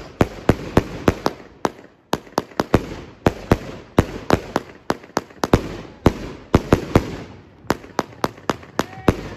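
A multi-shot consumer firework cake firing a rapid, loud barrage: sharp bangs about three a second with crackling after them, and a brief lull about two seconds in.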